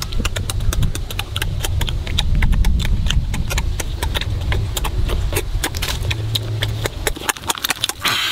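Close-up chewing and lip-smacking of people eating roasted chicken with their hands: a dense run of irregular clicks and smacks over a low rumble, with the crisp roasted chicken torn apart by hand near the end.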